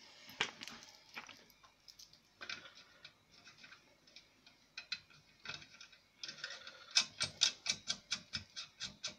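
Small metallic clicks and ticks as a brass fitting is screwed by hand into the top of a model steam engine's copper boiler, scattered at first, then a quick run of about five clicks a second near the end.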